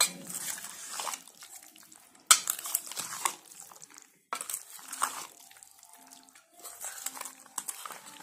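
A blue spoon stirring raw chicken in yogurt-spice marinade in a stainless steel bowl: irregular scrapes and knocks of the spoon against the metal, the sharpest knock about two seconds in.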